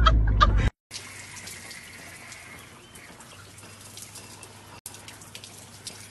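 Shower running: a steady hiss of water spraying from the head. It starts abruptly about a second in, right after a brief loud low rumble with a couple of sharp sounds that cuts off.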